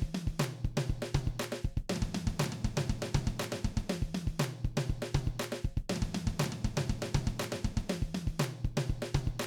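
Music with a drum kit playing a steady, quick beat over sustained low notes, the phrase repeating about every four seconds.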